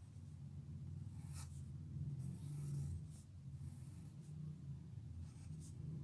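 Pencil scratching on paper in several short drawing strokes, over a steady low hum.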